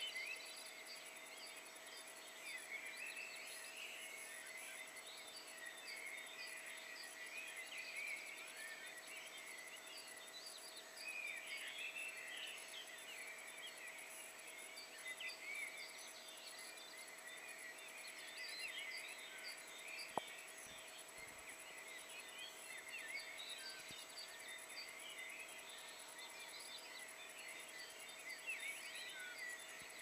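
Dawn chorus of many songbirds singing at once at a distance: a dense, unbroken tangle of short chirps and quick whistled sweeps. A single sharp click about twenty seconds in.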